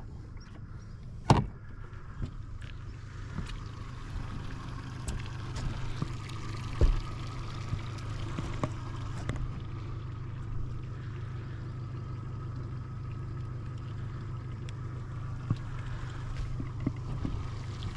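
Steady low hum of a boat motor running, with a sharp click about a second and a half in and a single knock near the middle.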